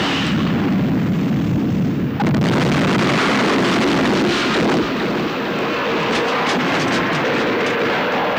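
Loud, rumbling, explosion-like sound effect, with a fresh surge about two seconds in.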